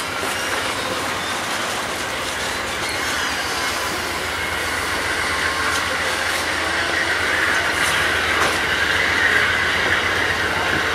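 Amtrak Amfleet passenger cars rolling slowly past: a steady rumble of wheels on rail that grows a little louder toward the end, with a few clicks as wheels cross rail joints.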